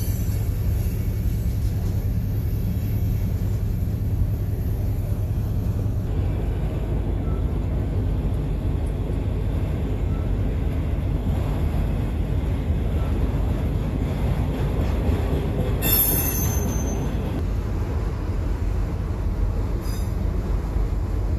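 Train rolling by with a steady low rumble, and a brief high-pitched wheel squeal about three-quarters of the way through.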